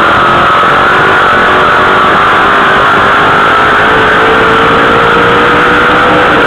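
Dirt late model sportsman race car's V8 engine at full throttle, heard loud from inside the cockpit. Its pitch climbs slowly as the car accelerates down the straight, then drops near the end as the driver lifts.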